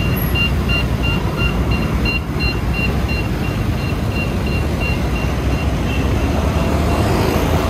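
Scooter ride with a steady engine and road rumble. A high electronic beep repeats a few times a second and stops about six seconds in. Near the end an engine rises in pitch as it speeds up.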